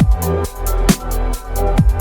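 Background electronic dance music with a heavy bass line and a steady, rhythmic beat.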